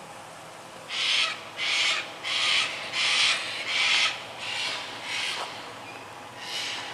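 A bird giving a run of harsh calls, about seven in a row at roughly one and a half a second, starting about a second in and growing fainter. After a short pause they start again near the end.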